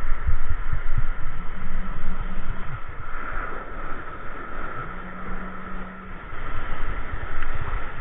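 Wind buffeting the camera microphone in irregular low thumps, over a steady hiss of surf breaking and washing across a rocky shore.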